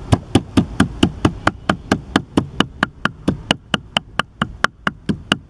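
Cleaver chopping raw fish on a thick round wooden chopping block: a fast, even run of knocks, about four to five strokes a second, as the fish is minced.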